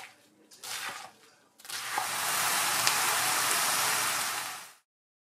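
A kitchen knife cutting through cabbage on a wooden board a couple of times, then a steady loud sizzle of cabbage, ground meat and green peppers stir-frying in a pan, which cuts off abruptly near the end.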